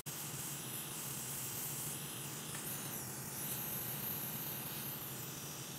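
Steady hiss of rushing air from the fume extractor fan and the hot air preheating the graphics card's circuit board.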